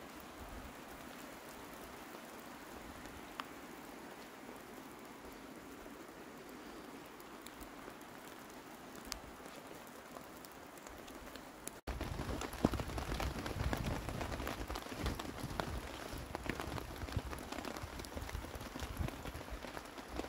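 Steady rain falling through trees, with a few single drops ticking. About twelve seconds in it cuts to louder, denser rain pattering on a tarp overhead.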